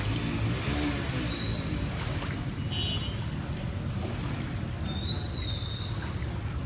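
Steady low rumble of outdoor background noise, with a few faint high chirps about a second and a half in, around three seconds, and again around five seconds.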